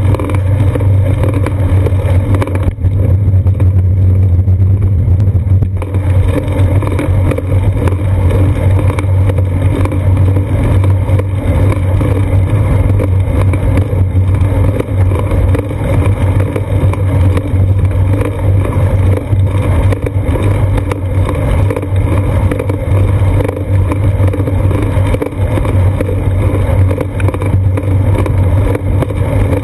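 Steady, loud rumble of wind and road vibration picked up by a GoPro Hero 2 mounted on the seat post of a moving bicycle.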